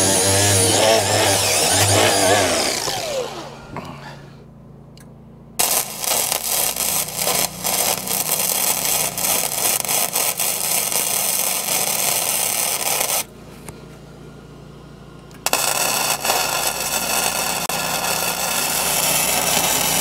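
Angle grinder running, then spinning down and stopping about three seconds in. Then a flux-core wire welder crackling steadily through two weld runs of about seven and five seconds, with a short pause between them.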